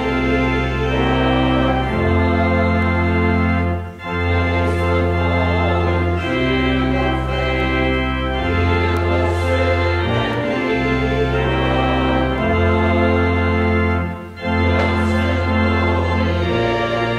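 Church organ playing slow, sustained chords over long held bass notes, the harmony changing every second or two, with two short breaks between phrases, about four seconds in and again near fourteen seconds.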